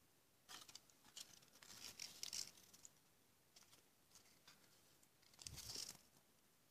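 Faint rustling and crinkling of a small folded paper toy leaflet being unfolded by hand, in a few short bursts, the loudest about five and a half seconds in.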